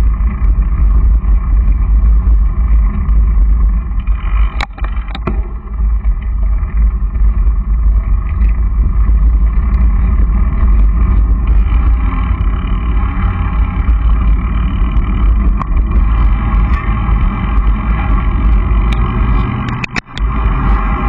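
Loud, steady wind rumble buffeting a camcorder microphone as it moves along behind a cyclist, with a few sharp knocks of handling and a brief drop in level near the end.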